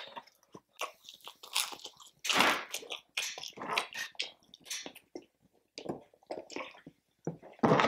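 A person eating close to the microphone: irregular crunches, bites and chewing with open-mouthed smacking.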